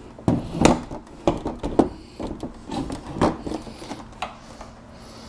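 A hand screwdriver working on a metal VESA wall-mount plate: a run of irregular knocks and clicks.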